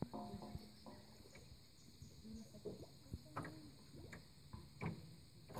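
Quiet, irregular splashes and small knocks of people wading in shallow water, with a few brief soft low sounds among them.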